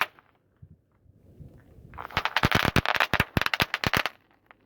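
Snappers (bang-snap firecrackers) popping in a rapid, dense burst of sharp cracks lasting about two seconds, as a car's tyre crushes them. The burst starts a little under two seconds in and stops abruptly.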